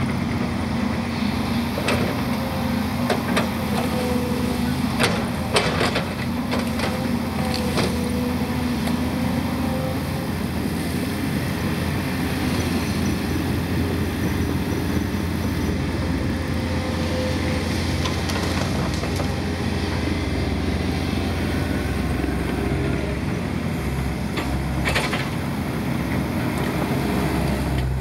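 Volvo 210 excavator's diesel engine running steadily as the machine works, with scattered knocks and cracks as brush is grabbed and piled.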